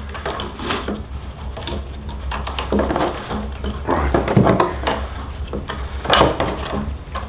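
Rawhide lacing being pulled and worked loose from the back of a frame drum. Irregular rubbing and scraping of hide, with a few sharp knocks.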